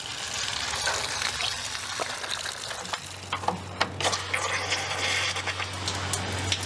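Water from a garden hose spraying and splashing while the car's cooling system is flushed, a steady hiss. A low steady hum joins about halfway through, along with a couple of brief knocks.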